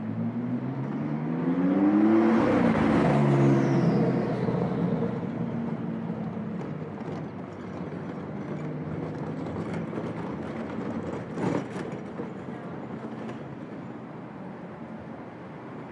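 A car accelerating past at a city intersection, its engine note rising over the first three seconds, then levelling off and fading into steady street-traffic noise. A few short sharp knocks come about eleven seconds in.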